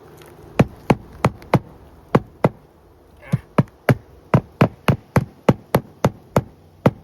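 Hammer driving roofing nails into a replacement asphalt shingle: a run of sharp blows, about three a second, with a brief pause about two seconds in and another near three seconds.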